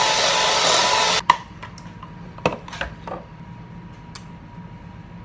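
Handheld electric mixer running, beating cookie batter in a glass bowl, switched off abruptly about a second in. A few light clicks and knocks follow.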